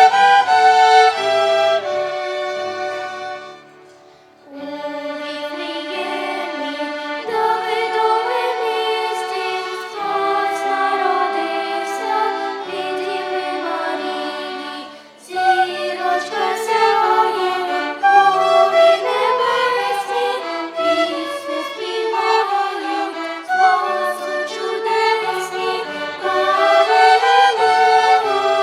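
Violin ensemble playing a melody, with voices singing along at times. The music drops away briefly about four seconds in and again about fifteen seconds in, between phrases.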